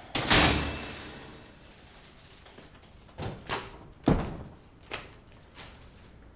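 Front door banging about a third of a second in, its ring dying away over about a second, then a few softer knocks, a second heavy thud and a click as the door is pushed shut and latched behind someone coming in.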